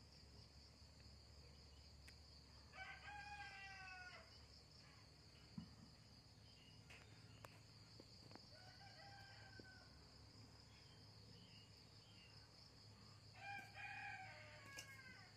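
Rooster crowing three times in the distance, each crow about a second and a half long, over a steady high-pitched insect trill.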